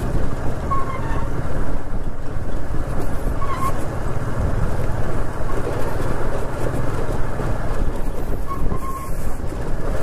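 TVS Apache RTR 160 motorcycle's single-cylinder engine running steadily at low speed, with the bike rattling and jolting over a rough stone-slab road.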